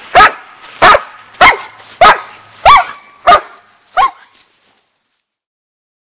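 German shepherd barking: seven sharp barks, evenly spaced at a little under two a second, the last one weaker.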